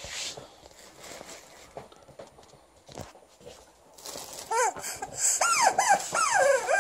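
Alaskan Malamute vocalizing in a string of short, rising-and-falling whining howls that begin about two-thirds of the way in, over faint crinkling of a plastic bag.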